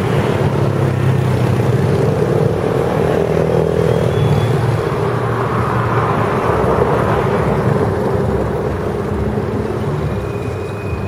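Steady, loud rumble of jet airliner engines, with a faint high whine appearing briefly about four seconds in and again near the end.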